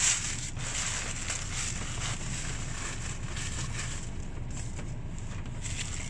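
Thin plastic packaging bag rustling and crinkling as hands rummage through it, slightly louder at the start.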